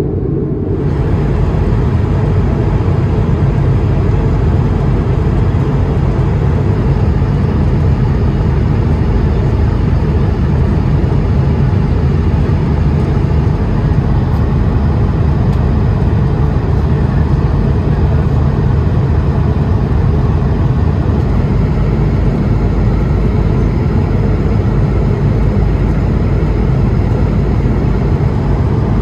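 Airbus A220-300 cabin noise in flight: the steady roar of the Pratt & Whitney PW1500G geared turbofans and the airflow over the fuselage, deep and even, heard from an economy window seat.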